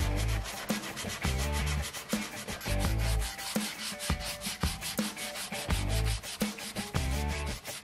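Sandpaper rubbed by hand along a wooden axe handle in quick back-and-forth strokes, a fast scratchy rasping.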